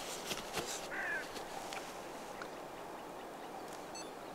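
Faint outdoor ambience with distant bird calls: one short call about a second in and a brief high chirp near the end, plus a few soft clicks near the start.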